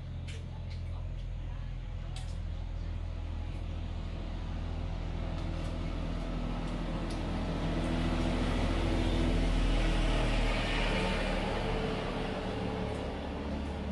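A motor vehicle's engine passing by, growing louder to a peak about two-thirds of the way through and then fading over a steady low hum.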